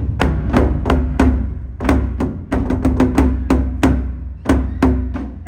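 Nagado-daiko taiko drums struck with wooden sticks in a driving, uneven rhythm of about four strikes a second: crisp cracks over a deep, sustained boom, each hit leaving a short ring from the drum.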